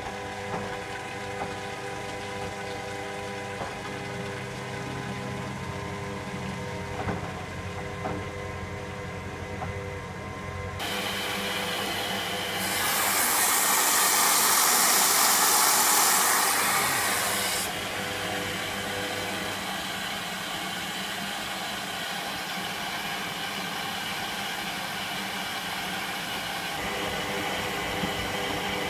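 Electra AWF683 front-loading washing machine running a 95° boil wash: a steady hum with tumbling for about ten seconds, then a sudden change and a loud rushing hiss for about five seconds before it settles to a steadier, quieter running sound.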